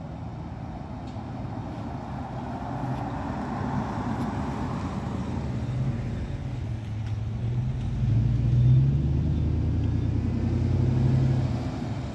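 A Peterbilt 520 McNeilus ZR garbage truck's engine running and growing steadily louder as the truck comes closer. It is loudest from about eight seconds in until near the end.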